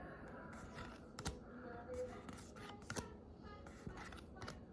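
A Pokémon trading-card booster pack being opened and its cards handled: faint rustling of the foil wrapper and cards, with a scattering of sharp little clicks and snaps.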